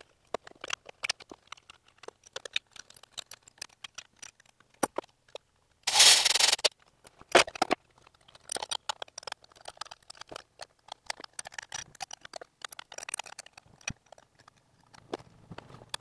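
Irregular small metallic clicks and knocks of hand tools and injector hold-down bolts being worked in an engine bay, with a short scraping rush about six seconds in.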